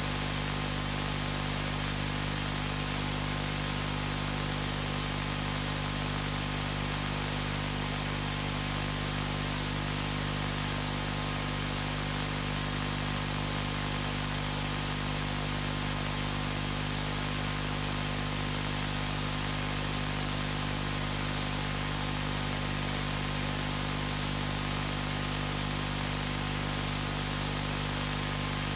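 Steady hiss with a low, unchanging hum under it: the background noise of the room and recording, with no other sound standing out.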